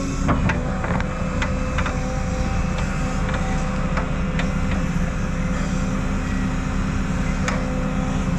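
Diesel excavator working: the engine runs steadily under load, with irregular sharp clanks and knocks from the bucket and machine.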